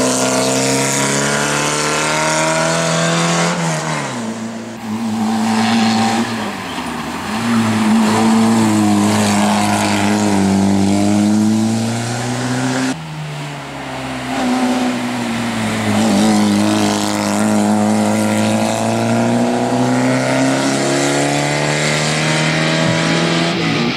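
Škoda Favorit race car's four-cylinder engine revving hard as it accelerates up a hill-climb course, its pitch climbing and dropping with each gear change. About halfway through, the sound breaks off abruptly and picks up again on another stretch of the run.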